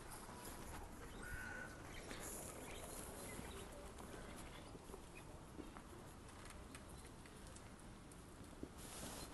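Faint outdoor street ambience with light footsteps on paving stones as the person filming walks.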